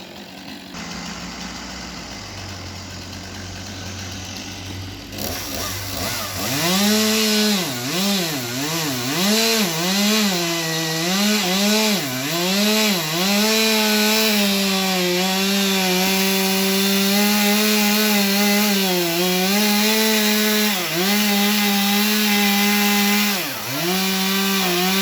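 Chainsaw cutting a tree. It starts as a low hum, revs up and down repeatedly from about six seconds in, then runs at a steady high speed through the wood, with a few brief drops in speed.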